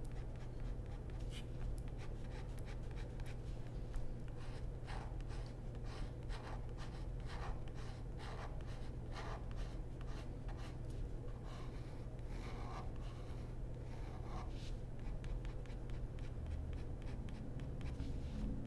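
Ink pen scratching on paper in many quick, short strokes as rapid lines are drawn, over a steady low hum.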